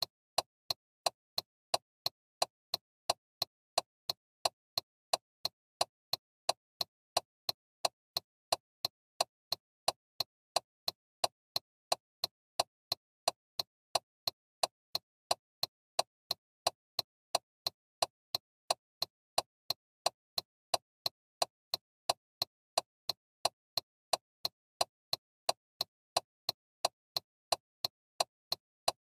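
Car turn-signal flasher ticking: an even, steady run of sharp clicks, about two to three a second, in a tick-tock rhythm.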